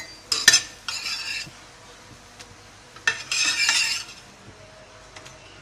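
A steel spatula scraping across a frying pan and clinking against it as fried French toast slices are lifted out. There are sharp clinks in the first half second, a short scrape about a second in, and a longer scrape around three seconds in.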